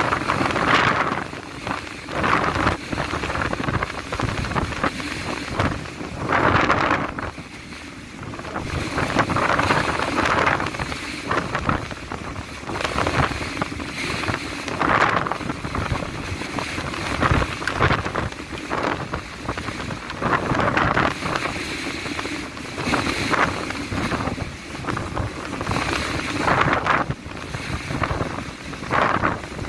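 Gale-force wind (Beaufort 8–9) blowing across the microphone in uneven gusts that surge every second or two, over a steady rush of wind and rough sea.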